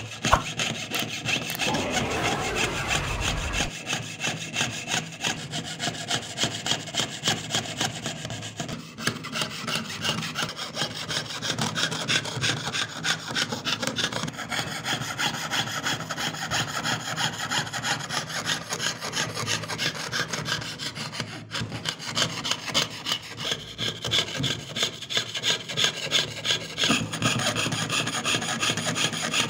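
Jeweler's saw blade cutting through thin metal sheet in quick, steady back-and-forth strokes, piercing out the background of an engraved pendant design.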